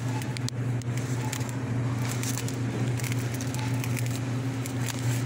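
Supermarket background noise: a steady low hum with scattered light clicks and crackles over it.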